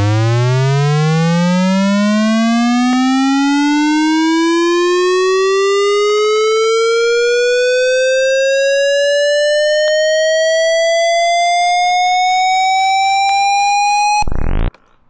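Ableton Live's Operator synthesizer playing a square-wave riser: one loud, steady synth tone whose pitch envelope glides it smoothly upward from a deep bass note to a high pitch, rising fast at first and then more gradually. It cuts off suddenly near the end, with a brief burst of sound just after.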